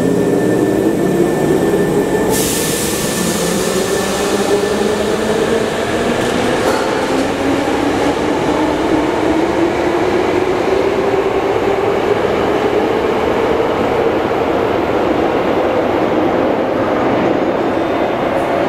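Hankyu 5300 series resistance-control electric train pulling away and accelerating, its traction motor whine rising steadily in pitch over the wheel and rail noise. A sharp hiss starts about two seconds in and fades over the next few seconds.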